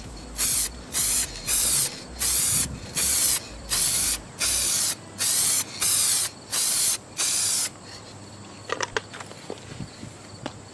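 Aerosol can of touch-up paint spraying in about eleven short, even bursts of hiss, each roughly half a second long, stopping after about seven and a half seconds. A few faint clicks follow.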